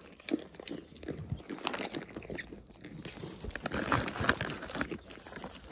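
Goats crunching and chewing whole peanuts in the shell, close up: an irregular run of crisp cracks and chewing, busiest about four seconds in.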